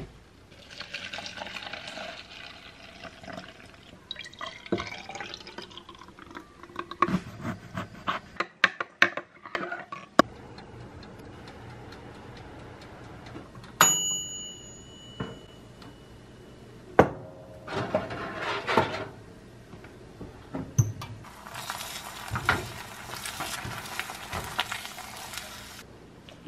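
Breakfast being made in a kitchen: liquid pouring or running, a string of clicks and clatter from dishes and utensils, and about halfway through a single bright ringing ding.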